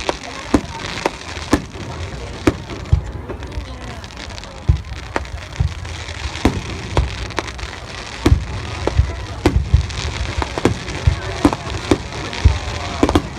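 Fireworks display: bursting shells bang in quick, irregular succession, at times several a second, over a steady background noise.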